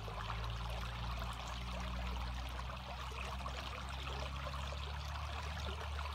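A shallow stream running over a rock ledge, a steady rush and trickle of water with a low rumble underneath.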